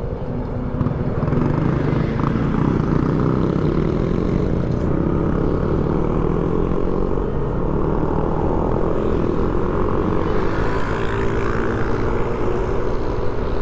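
Yamaha Aerox scooter's engine running at cruising speed, with wind noise on the helmet or bike-mounted microphone. The engine note climbs a little about a second in, then holds fairly steady.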